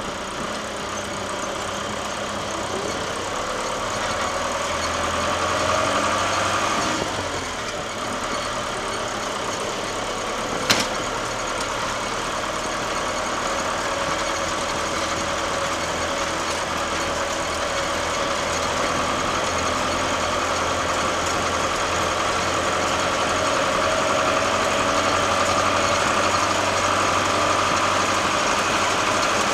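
Case 885XL tractor's four-cylinder diesel engine running as it drives, heard close by from the hood, with the engine note rising and falling a little. A single sharp knock cuts through about ten seconds in.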